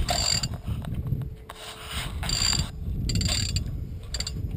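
Fishing reel's clicker ratcheting in repeated short bursts as a fish strikes and takes line, with wind rumbling on the microphone.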